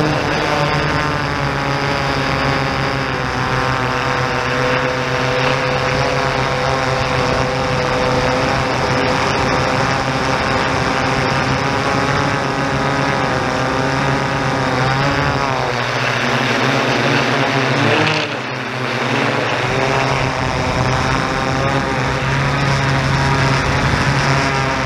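Yuneec Typhoon G quadcopter's electric motors and propellers running in flight, a steady multi-tone whine close to the microphone. About two-thirds of the way through, the pitch sags and swings back up as the motors change speed, with a brief dip in loudness.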